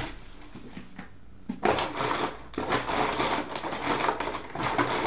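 Rustling, clicking and knocking of small objects being handled and rummaged through, starting about one and a half seconds in and going on in uneven bursts.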